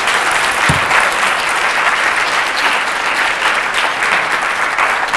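A roomful of students applauding steadily at the end of a lecture, with one low thump just under a second in.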